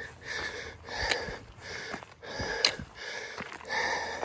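A hiker breathing hard, about one breath every second and a half, with light footsteps on a dirt trail.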